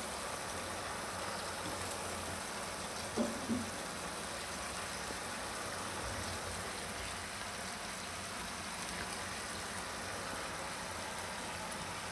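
Steady hiss and bubbling of fenugreek leaves in a thin broth simmering in a wok over a gas flame, with two brief soft sounds about three seconds in.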